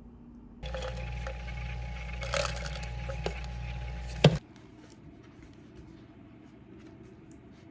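A small electric appliance switches on and hums steadily for about four seconds, with a few light clicks, then cuts off with one sharp click.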